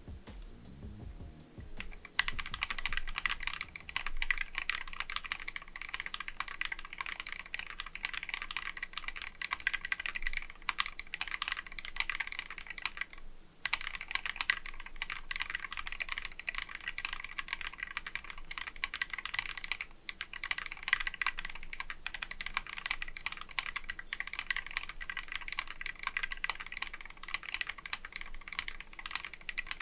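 Continuous typing on a mechanical keyboard fitted with lubed Glorious Holy Panda tactile switches on a polycarbonate plate, in a Tofu 60% board: a fast, dense clatter of keystrokes. It starts about two seconds in and pauses briefly twice.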